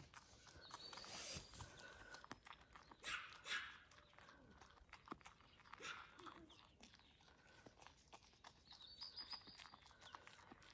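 A baby goat nibbling and chewing grass from a hand: faint, quick crunching clicks, with two louder rustles of grass about three seconds in.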